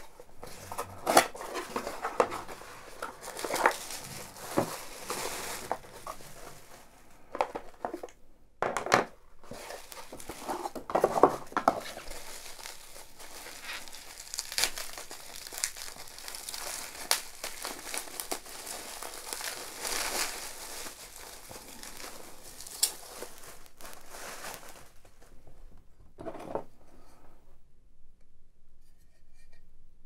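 Bubble wrap and cardboard packaging being handled and unwrapped by hand: crinkling and rustling with scattered sharper knocks, dying down about five seconds before the end.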